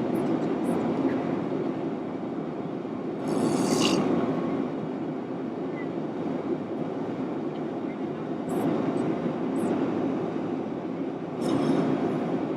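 A man snoring loudly over the steady drone of an aircraft cabin: a loud snore about three seconds in, a weaker one about two-thirds through, and another loud one near the end.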